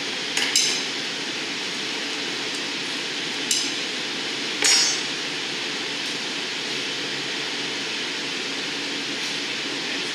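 Steady rush of hot-shop gas burners and blowers, with sharp metallic clinks of steel glassblowing tools: two close together right at the start, one about three and a half seconds in, and a ringing one about a second later.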